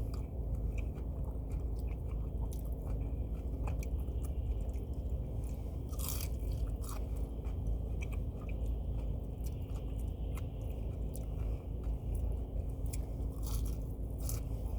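A person chewing and crunching fried food close to the microphone, with irregular small crackles and bites.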